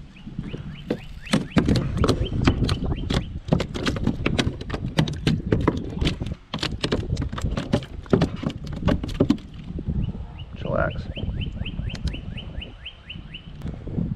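Irregular clicks and knocks of a fishing rod and a small landed fish being handled on a plastic kayak. A rapid run of light, high, evenly spaced ticks comes at the start and again from about ten seconds in.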